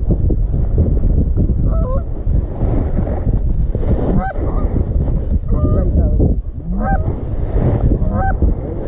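Geese honking, a flock calling in many short, overlapping honks, over a steady low rumble.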